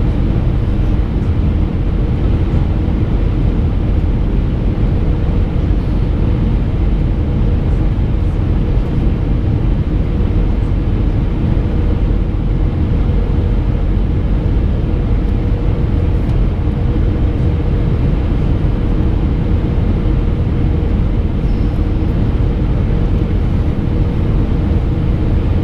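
Airbus A319 cabin noise in flight, heard from a window seat: a steady rumble of engines and airflow with a constant hum, unchanging throughout.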